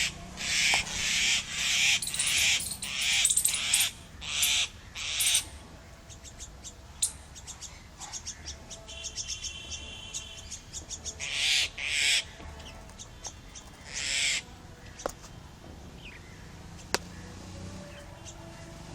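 Park birds calling while they feed: a quick series of loud, rasping calls over the first five seconds, two or three more near the middle, and fainter chirps and twitters between.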